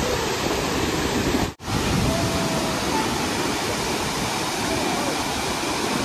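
Burney Falls, a 129 ft waterfall, pouring into its plunge pool: a steady, loud rush of falling water. The sound cuts out for an instant about a second and a half in.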